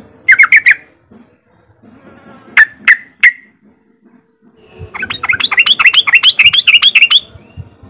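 Caged yellow-vented bulbul giving its 'riwik' call: a quick burst of four sharp notes, three more single notes a couple of seconds later, then a rapid chattering run of about two seconds near the end.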